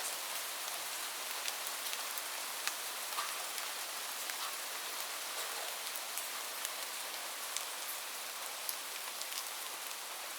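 Steady rain: a constant hiss of rainfall with many separate drops ticking sharply on a surface.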